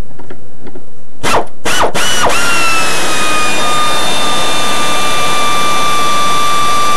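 Garage air compressor starting up: a few short bursts, then a steady high-pitched whine with overtones that settles and holds.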